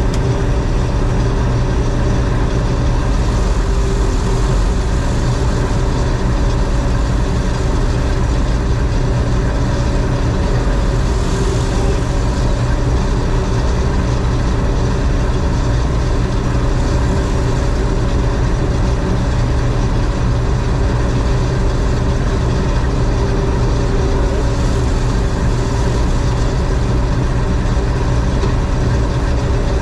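John Deere 4400 combine's engine and machinery running steadily at a constant speed, with an even hum and a mechanical clatter.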